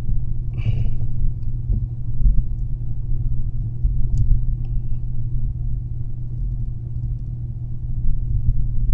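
Steady low rumble, with a brief scrape or clatter about half a second in and a few faint clicks further on.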